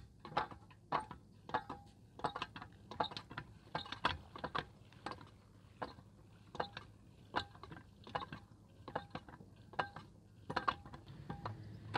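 Hand water pump being worked stroke after stroke: a squeaky metallic clank roughly once or twice a second, with a brief pause midway, as groundwater is pumped up.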